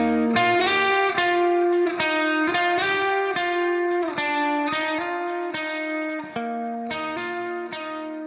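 Background music: a guitar with effects playing a melody of plucked notes, fading slightly toward the end.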